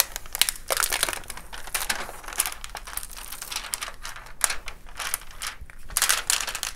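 Diamond painting canvas and its clear plastic cover crinkling and crackling as hands press and smooth it flat, in irregular bursts of rustle.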